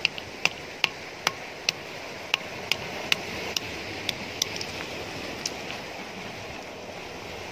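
A hand-held stone striking a small shell against a stone block to crack it open for bait: about a dozen sharp knocks, two or three a second, that thin out and stop about five and a half seconds in. Surf washes steadily in the background.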